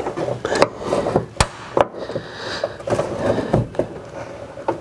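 Plastic trim clips and a plastic tailgate trim panel being pried and popped loose: several sharp clicks and knocks with plastic rubbing between them.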